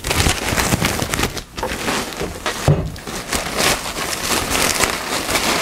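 Thin plastic packing bag crinkling and rustling as a boxed speaker is pulled out of it, with one dull knock about halfway through.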